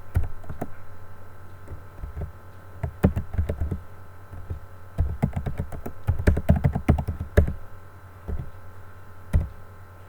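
Typing on a computer keyboard: irregular runs of key clicks, with pauses between bursts, over a steady low electrical hum.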